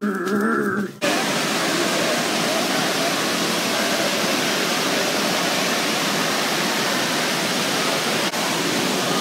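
Steady rushing-water din of an indoor water park, with slides and pools running, which starts abruptly about a second in.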